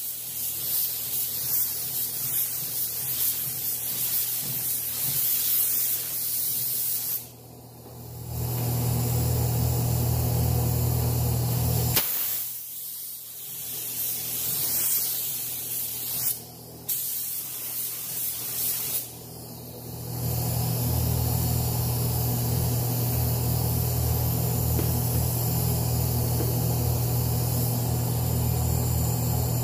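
Gravity-feed paint spray gun hissing as it sprays candy paint, in long passes with a low hum underneath, broken by short pauses about four times.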